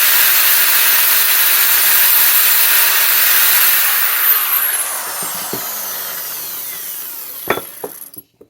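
Power cutting tool cutting through the steel jack handle with a loud, hissy grinding noise, then switched off about four seconds in, its whine falling as the motor winds down. A couple of sharp metal knocks come near the end.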